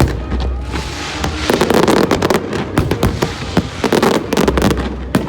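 Aerial fireworks going off in quick succession: a dense run of sharp cracks and pops over deep booming rumbles.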